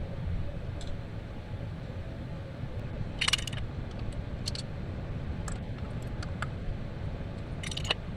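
Light metallic clinks and taps, scattered through and loudest a little after three seconds and near the end, from transmission oil pan bolts being handled and threaded in by hand, over a steady low rumble.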